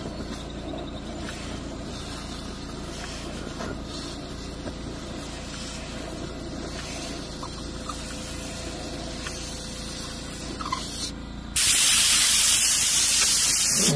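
Air compressor running steadily as it builds pressure back up. About 11 seconds in, a loud hiss of compressed air from a Flexzilla air blow gun starts and lasts a couple of seconds, blowing debris out through an aftermarket catalytic converter.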